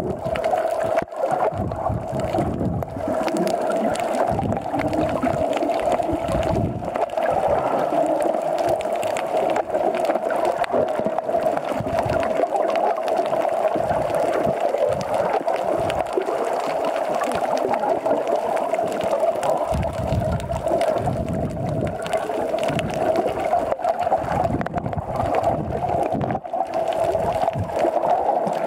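Muffled underwater sound picked up by a camera in a waterproof housing while snorkelling: a steady hum of water noise with irregular low gurgles and sloshing from the swimmer's strokes and bubbles.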